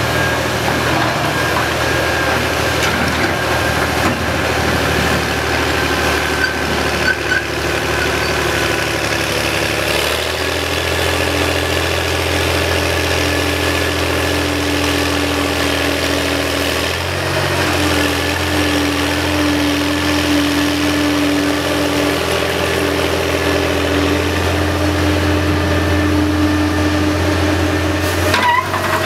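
Menck M260 cable dragline's engine running under load as it works the drag bucket, its note stepping up about ten seconds in and shifting again a few seconds later as the winches take up the load. Near the end there is a short clatter as the bucket dumps its gravel.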